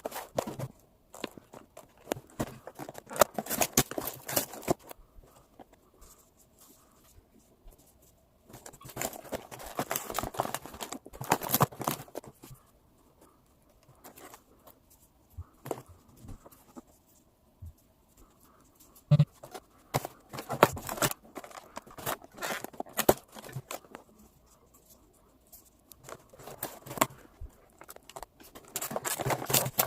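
Packaging being handled and torn open: crinkling, rustling and tearing with small clicks, in four bursts of a few seconds each with quiet pauses between.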